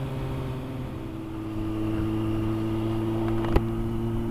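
Kawasaki Z900's inline-four engine running steadily under way, its pitch rising a little about a second in, with wind and road rumble. A single sharp click sounds near the end.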